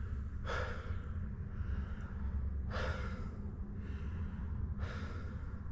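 A man breathing hard, catching his breath after heavy leg training: three deep, noisy breaths about two seconds apart, over a steady low hum.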